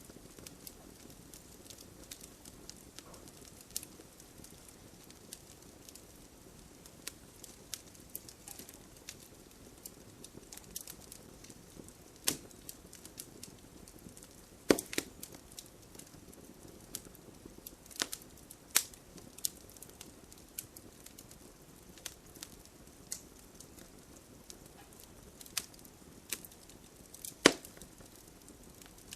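Wood fire burning in a fireplace, crackling with irregular sharp pops and snaps over a soft steady hiss. A few louder pops stand out, around the middle and once near the end.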